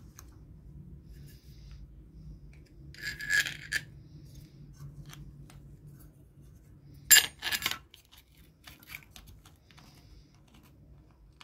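Handling of an electric bakhoor burner's small metal parts: a brief scraping rub about three seconds in, then a sharp metallic clatter of a few quick hits about seven seconds in as the sheet-metal top plate is set down over the heating element, with light clicks in between over a faint low hum.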